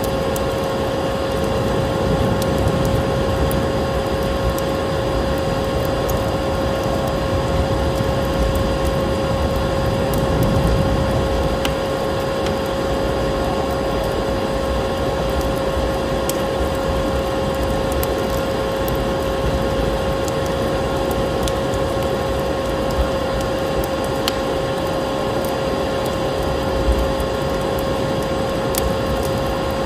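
Vacuum cleaner running steadily: a constant motor hum over rushing air, with occasional faint clicks.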